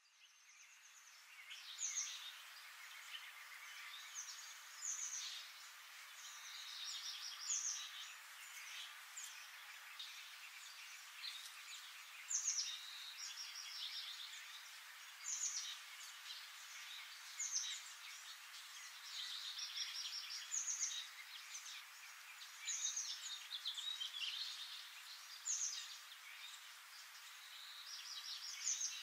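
Forest ambience: birds calling in short, high-pitched chirps and quick falling whistles every couple of seconds over a steady background hiss, fading in at the start.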